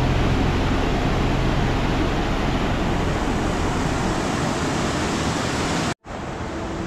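Steady rush of falling water, an even noise with no rhythm. It cuts out abruptly for a moment near the end, then comes back a little quieter.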